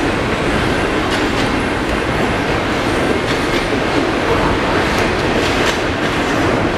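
CN intermodal freight train's double-stack container cars rolling past: a steady rumble of steel wheels on the rails, with a few sharp clicks from wheels passing over rail joints.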